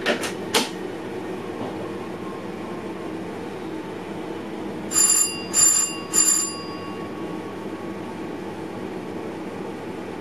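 Three rings of an electric bell signal inside a train cab, about half a second apart, each ringing on briefly, over the steady hum of the train. A couple of sharp clicks come right at the start.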